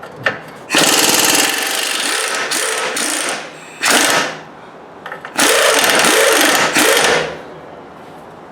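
A power tool runs in three bursts: a long one of about two and a half seconds, a brief one, then another of about two seconds.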